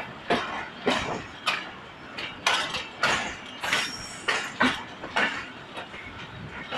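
Wheels of the slowly departing Millat Express coaches clanking over rail joints and points: a run of sharp metallic knocks at uneven spacing, roughly one or two a second.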